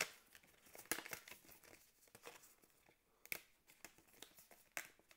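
Stiff, plasticky paper parts of a Foldscope kit crinkling and rustling as they are handled, with a few sharp crackles and snaps as pieces are flexed and pulled apart.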